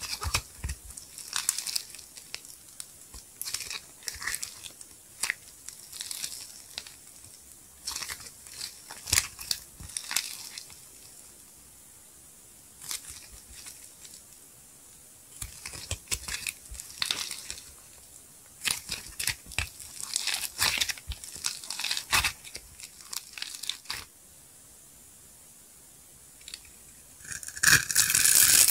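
Soft, foamy blue soap being squeezed, stretched and torn apart by hand, giving irregular soft crackling and tearing with quiet pauses. Near the end a box-cutter blade starts shaving a glitter-coated soap bar, a denser and louder crunching scrape.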